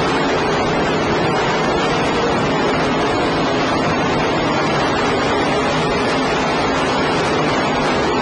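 Race car engines running during a race, heard as a steady wash of noise with a faint engine drone beneath it, in a poor-quality, distorted recording.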